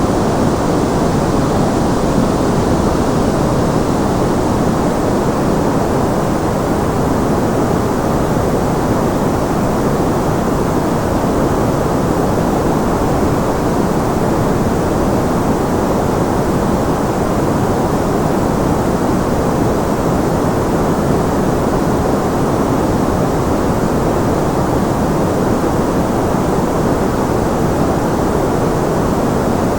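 Continuous white noise, a steady unchanging rush that is fuller in the low and middle range than at the top.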